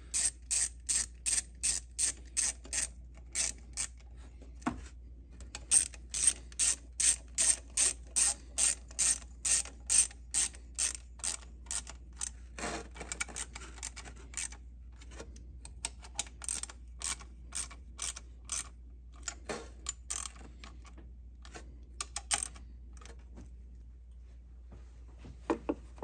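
Hand ratchet clicking as it runs bolts snug on an aluminum thermostat housing: steady runs of about three clicks a second with a short pause about four seconds in, growing sparser and more irregular in the second half as the bolts tighten down.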